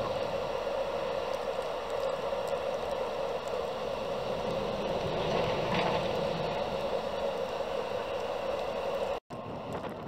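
Steady wind noise in a snowstorm, an even rushing hiss without any distinct events. It cuts out briefly about nine seconds in.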